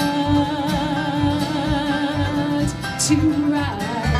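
Live acoustic folk band of banjo, acoustic guitar and upright bass playing under a woman's voice that holds one long wordless note with a wide vibrato, then sings a shorter note about three seconds in.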